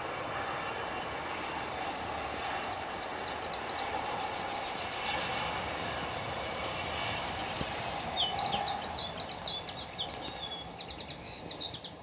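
Steady rumble of a passing train, with birds calling over it: rapid high trills from about two and a half seconds in, then varied high chirps and short whistles in the last few seconds.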